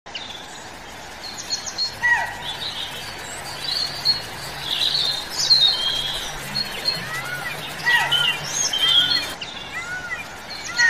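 Several forest birds chirping and calling together in a busy chorus. In the second half one bird repeats short arching whistles, about two a second, and twice a sharp call sweeps downward.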